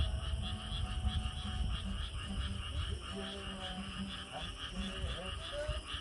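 Chorus of many frogs calling at night: a dense, fast-pulsing trill that runs on steadily, with a low rumble under it in the first half.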